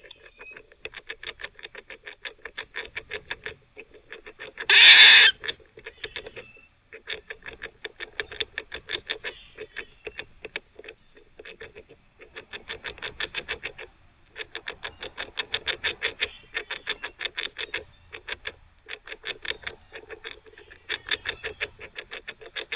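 Eastern gray squirrel gnawing on a hard chew, with rapid scraping strokes about six a second in runs of a few seconds. About five seconds in comes one loud, harsh bark.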